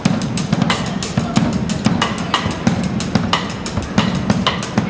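Drum kit played live in a busy, driving rhythm, several strikes a second with no singing over it.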